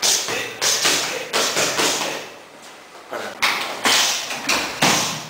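Boxing gloves and kicks smacking handheld striking pads in quick combinations: about a dozen sharp slaps in two flurries, with a short lull a little past two seconds in.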